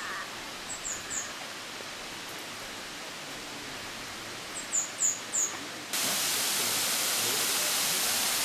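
A small bird gives quick runs of three or four high, falling chirps, twice, over a soft forest hiss. About six seconds in, the steady rush of a waterfall cuts in abruptly and is louder than anything before it.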